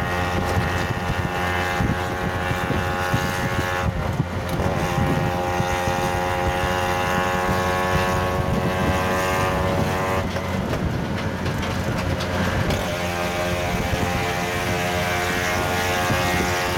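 Auto-rickshaw's small engine running under way, with wind and road noise. Its pitched drone breaks off and comes back about four seconds in, again around ten seconds, and once more around thirteen seconds.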